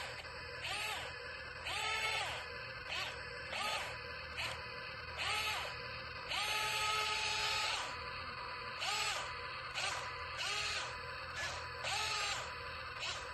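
A small electric motor spinning up and down in short repeated bursts, about one a second, each a brief rising-then-falling whine with a buzz above it, one burst held longer in the middle.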